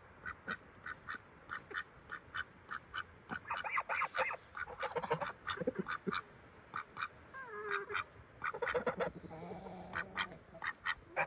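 White domestic ducks quacking over and over. It starts as an even run of short quacks, about three a second, then comes in louder bunched calls in the middle and again near the end.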